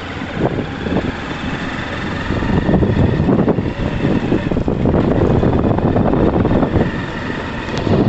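A vehicle driving along a rough dirt and gravel road, with wind on the microphone and many small knocks and jolts from the uneven track.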